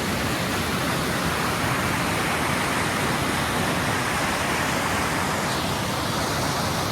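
Stream water rushing steadily over rocks, an even, unbroken rush.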